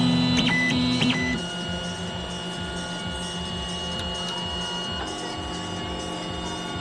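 Prime 1 3D printer running, its motors giving a steady whine of several tones that shifts and drops a little about a second and a half in, then changes again about five seconds in.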